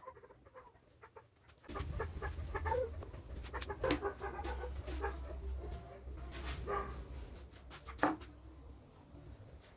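Chickens clucking with short, repeated calls. A steady low hum starts about two seconds in and fades near the end, and there are a couple of sharp knocks.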